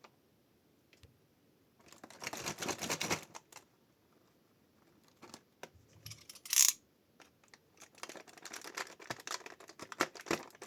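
Blind-box packaging being handled and opened by hand: plastic wrapping crinkling and tearing in two stretches, with scattered small clicks between them and one short, loud burst about six and a half seconds in.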